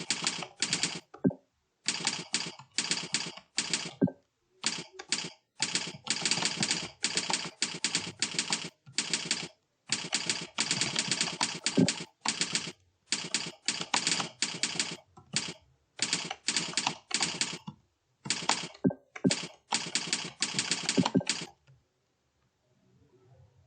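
Fast typing on a computer keyboard: rapid runs of keystrokes in bursts of a second or so, with brief pauses between them, stopping shortly before the end.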